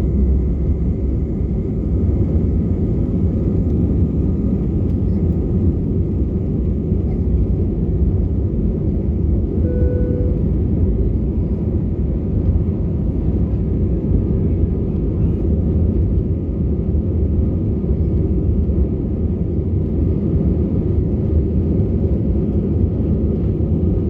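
Airliner taking off, heard from the cabin: a steady, loud low rumble of jet engines and rushing air.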